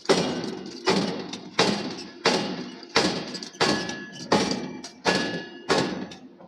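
Hammer blows on steel at the forge: nine heavy strikes in an even rhythm, a little under one and a half a second, each followed by a short metallic ring.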